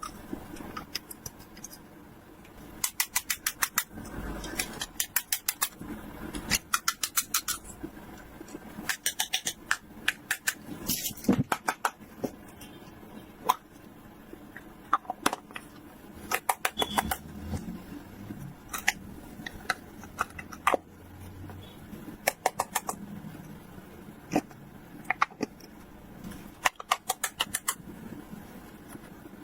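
Toy packaging and small plastic toy pieces being handled: short runs of rapid sharp clicks, about ten in a row, recurring every one to three seconds.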